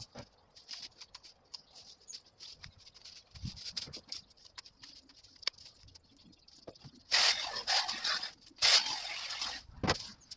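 Hedge branches and leaves rustling, with twigs cracking and snapping, as overgrown growth is cut and pulled out by hand. Many small clicks and cracks run throughout, and two loud rustling surges of about a second each come a little past halfway.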